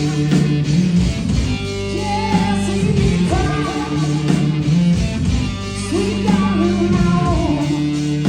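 Live garage-rock song played by a guitar-and-drums duo: electric guitar and drums, with a singing voice.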